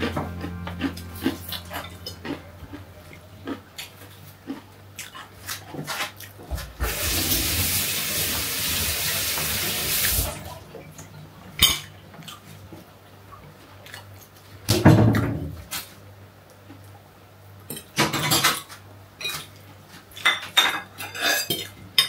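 Tableware clinking: a fork and plates tapped and scraped during a meal, in scattered light clicks. A few seconds of running water, such as a tap, about a third of the way in, and a louder thump about fifteen seconds in.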